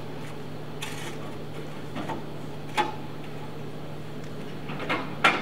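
Steam locomotive standing with steam up, giving a steady low hum, with a few sharp clicks and knocks; the loudest comes near the end.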